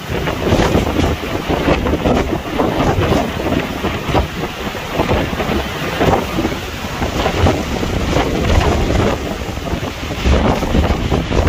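Strong storm wind gusting against the microphone, a loud rushing noise that swells and buffets without letting up.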